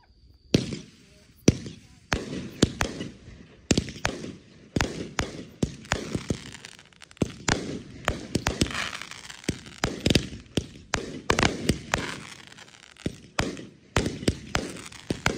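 Aerial firework shells bursting in quick, irregular succession, starting about half a second in: sharp bangs with a crackling haze between them.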